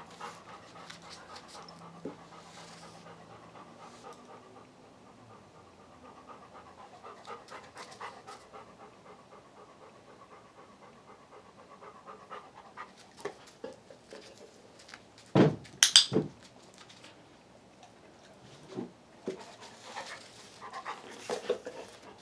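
A dog panting steadily, with scattered light clicks and two sharp knocks in quick succession about two-thirds of the way in.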